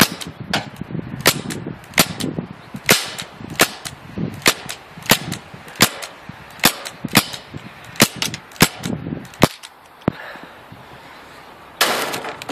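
CO2-powered Crosman pellet gun firing a quick string of about a dozen shots, roughly one every two-thirds of a second. A rustle follows near the end.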